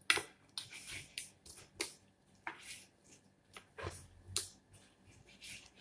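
Kitchen knife cutting raw chicken breast on a wooden cutting board: about ten short, uneven knocks as the blade goes through the meat and strikes the board.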